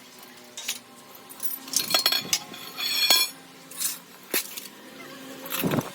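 Metal parts and hand tools clinking and knocking in irregular strikes, one of them ringing about three seconds in.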